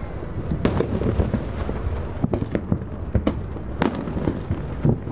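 Aerial fireworks bursting: a string of sharp bangs and cracks at irregular intervals over a continuous low rumble of booms.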